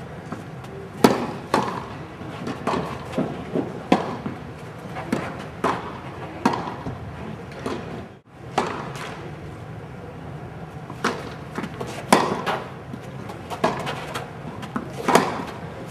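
Tennis balls being struck with rackets and bouncing on the court: a run of sharp, irregularly spaced thwacks with softer knocks between them, and a brief gap about eight seconds in.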